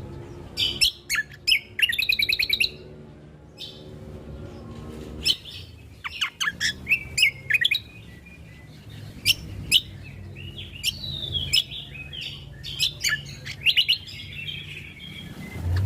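Cucak kombo (kecial kombo) songbird singing: a busy run of sharp, quick chirps and short trills, some sliding up or down in pitch, over a low steady hum.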